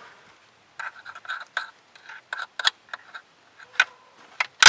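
Small irregular clicks and scrapes of hand work at a car's rear seat-back latch while it is being greased, starting about a second in and coming more often near the end.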